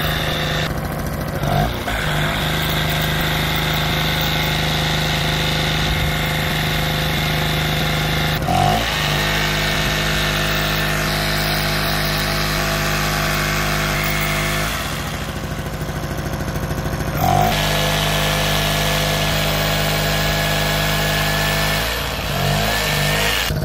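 Small XG 950 portable generator's two-stroke engine running steadily just after being started, its note wavering and picking up again briefly a few times.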